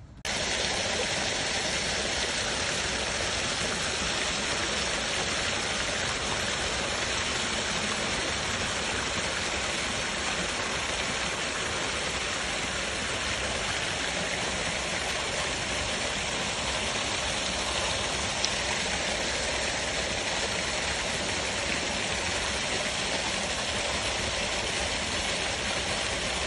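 A steady, even rushing noise that switches on abruptly just after the start and holds unchanged throughout, with one brief tick about two-thirds of the way through.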